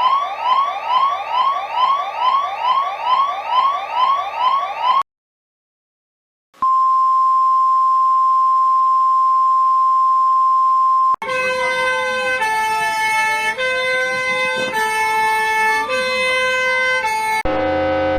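Electronic emergency alert tones played one after another. First comes a fast repeating rising whoop, about two and a half sweeps a second. After a short silence there is a single steady high beep for about four and a half seconds, then a chord of alarm tones whose pitches step up and down while two of them slide against each other. Another alert tone starts near the end.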